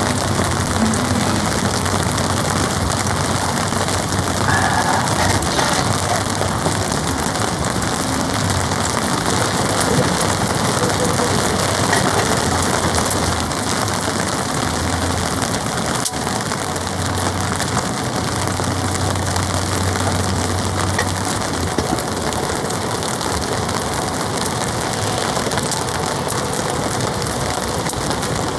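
Heavy rain drumming steadily on a polycotton (TC) tarp, a dense continuous patter.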